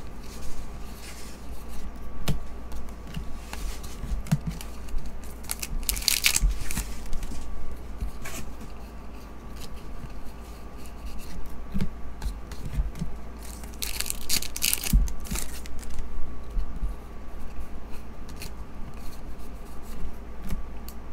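Stiff foil-bordered Topps Star Wars trading cards being flipped through by hand, sliding and clicking against each other, with two longer, louder slides about six and fourteen seconds in.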